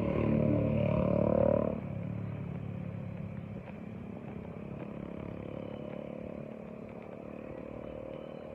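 A motor vehicle's engine passing close by on the road, loud for the first couple of seconds and cutting off suddenly, then a steady background hum of road traffic.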